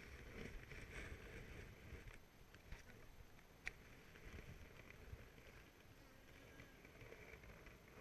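Near silence: a faint hum, with a few light clicks and knocks from a wooden beehive frame being handled and lowered back into the hive box.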